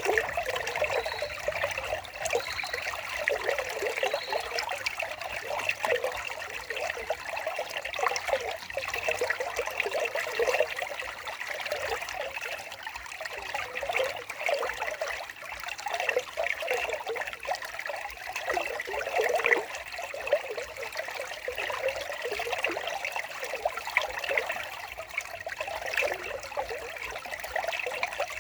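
Water of a small stream trickling steadily.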